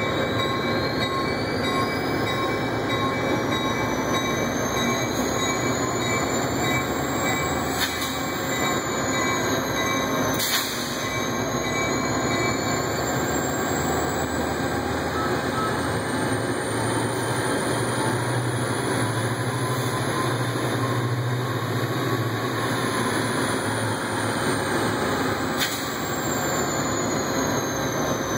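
Steady din of an idling Metra diesel locomotive under a trainshed. A low engine hum swells for several seconds past the middle, and faint high whines glide up and down in pitch. A few brief knocks sound, the clearest about ten seconds in.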